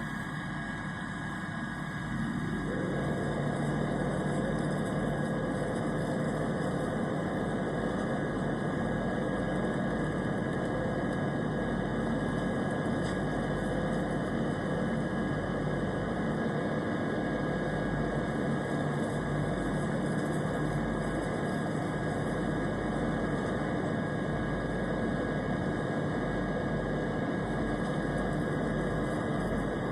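Steady airplane engine drone, an even rushing noise with a faint constant whine, unbroken throughout. It grows slightly fuller and louder about two and a half seconds in, then holds steady.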